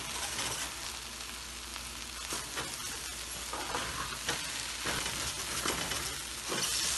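Soaked rice and moong dal sizzling in hot oil in a metal pot as a wooden spoon stirs them, each stroke adding a soft scrape through the grains. The grains are being roasted in the oil until they stop sticking, before water goes in.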